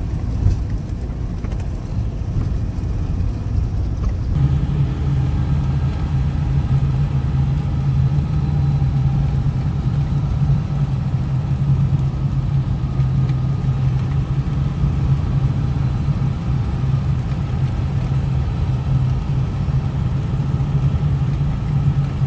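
Land Rover Defender driving on a country road, heard from inside the cab: a steady engine drone mixed with tyre and road noise. About four seconds in, the low hum becomes louder and more even.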